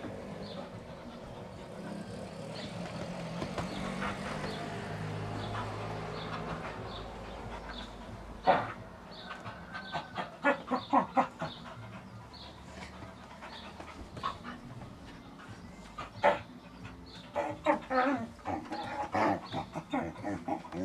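A dog romping with a person on a couch: steady panting at first, then bursts of short yaps and whines, with two sharp knocks, about halfway and about three-quarters of the way through, as the loudest sounds.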